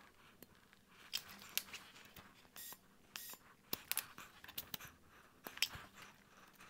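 Faint scattered clicks, taps and scrapes of an air hose chuck, tire pressure gauge and metal wrenches being handled and set down on a concrete floor while a lawn tractor's front tire pressure is checked.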